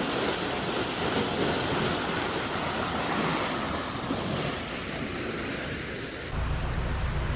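Lock side weir water pouring and rushing in a steady roar. It cuts off suddenly about six seconds in, giving way to a low, steady engine hum.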